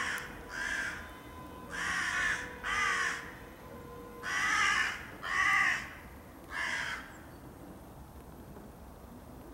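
Crows cawing, about seven caws mostly in pairs, stopping about seven seconds in.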